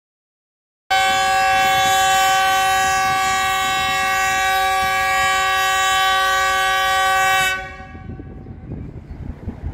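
Diesel locomotive's multi-tone air horn sounding one long steady blast. It starts about a second in and cuts off sharply near the end, leaving faint background rumble.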